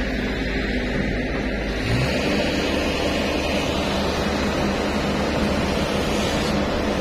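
Steady mechanical drone of a running engine or machine, its tone changing about two seconds in.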